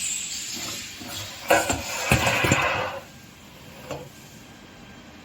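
Metal clanks and rattling from a CNC panel bender working sheet metal, with two sharp knocks about a second and a half and two seconds in, then a quieter steady machine background with a single click near the end.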